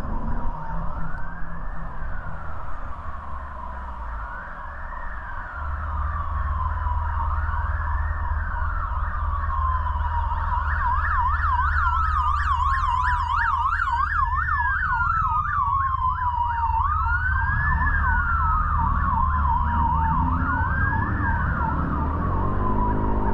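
Emergency vehicle siren in traffic: a slow wail rising and falling about every three seconds, with a fast yelp sounding alongside it from about ten seconds in for several seconds.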